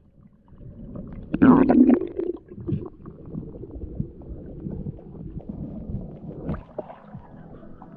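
Muffled underwater sound in a river: low rumbling of the current with scattered small clicks, and a louder gurgling burst about a second and a half in.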